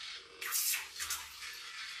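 Water sloshing and splashing in a filled washbasin, with a louder splash about half a second in and a shorter one about a second in.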